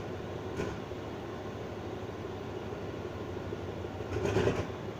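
Diesel-electric locomotive idling at a station platform, a steady low hum. About four seconds in there is a short, louder noisy burst.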